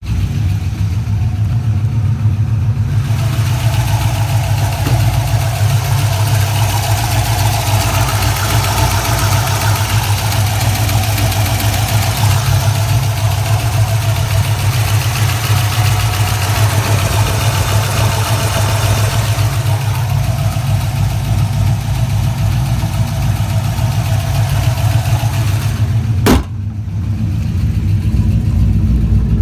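GM LS1 5.7-litre V8 idling steadily with a lifter tick, which the owner takes for a stuck lifter filled with debris. A single sharp click comes near the end.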